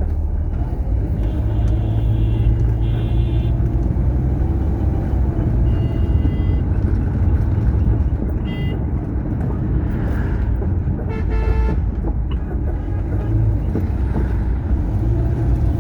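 Steady rumble of a vehicle driving along a highway, with vehicle horns honking about five times in short toots, the longest and loudest about eleven seconds in.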